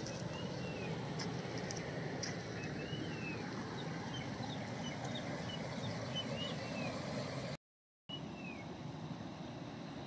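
River water rushing steadily over rocks, with small birds giving short repeated chirps above it. The sound cuts out completely for about half a second near the end.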